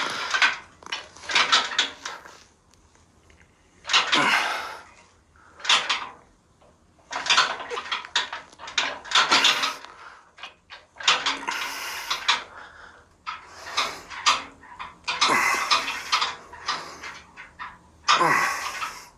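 Power-rack multi-arm attachment clanking and rattling with each press rep, a burst of metal-on-metal knocking every second or two. The noise comes from play in the arms' mounting on the rack before it is padded.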